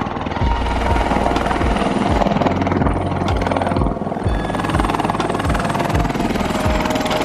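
Helicopter engine and rotor noise, running steadily, with background music that has a steady low beat.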